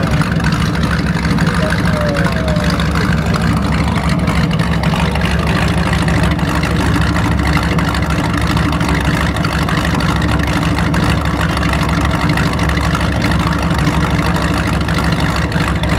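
1971–73 Ford Mustang engine idling steadily, heard at its twin exhaust tailpipes as an even, unchanging low rumble.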